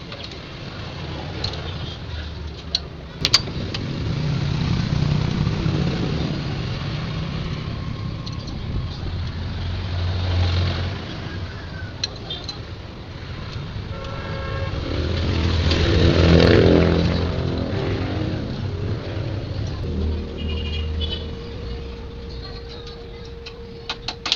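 Motor vehicles passing one after another, each rising and then fading, the loudest about two-thirds of the way through. A few sharp clicks come near the start, and a steady hum begins near the end.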